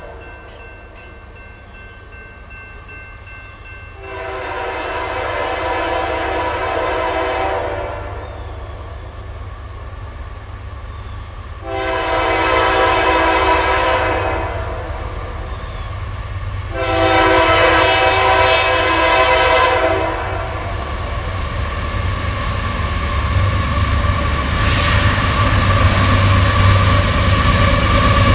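Multi-tone air horn of an approaching diesel freight locomotive, a Union Pacific GE AC4400CW leading a double-stack intermodal train, sounding three long blasts. After the last blast the rumble of the locomotives and train grows steadily louder as they draw close.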